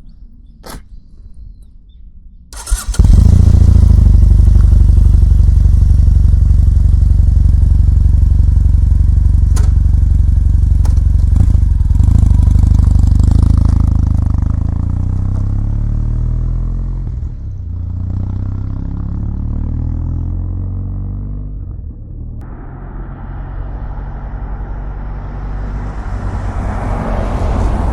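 Kawasaki W800's air-cooled parallel-twin engine, stock exhaust, starting up suddenly about three seconds in and then running at a steady idle. It settles a little quieter after the middle and grows louder again near the end.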